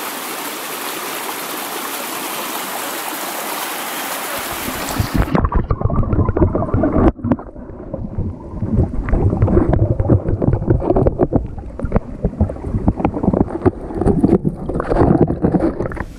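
A brook rushing over rocks, a steady hiss. About five seconds in it turns suddenly muffled and low, a churning, bubbling rush with many small knocks, as the microphone goes under the water.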